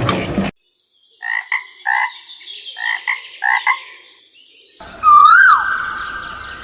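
A series of short frog-like croaks, then a loud high electronic tone that swoops up and down and then holds steady.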